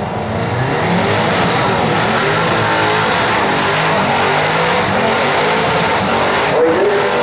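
Twin-turbo V8 in a Holden ute revving hard through a burnout, its rear tyres spinning on the pad. The engine note climbs over the first second, then holds at high revs under a dense wash of tyre noise.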